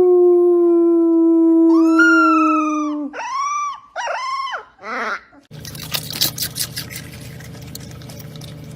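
A dog howling: one long, slightly falling howl of about three seconds, with a higher howl joining about two seconds in, then two short rising-and-falling howls. From about five and a half seconds in, the howling gives way to a noisy clatter over a steady low hum.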